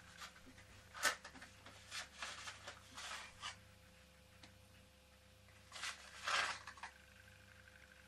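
Handling noises on a workbench: a sharp click about a second in, a run of short rustles and knocks from about two to three and a half seconds, and a louder rustle around six seconds.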